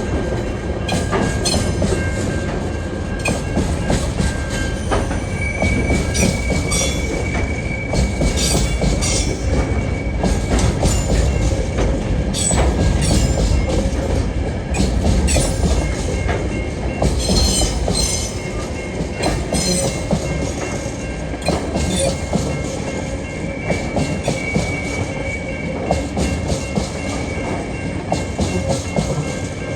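A freight train's wagons roll steadily past, their wheels clicking over rail joints under a continuous deep rumble. A faint, high wheel squeal comes and goes.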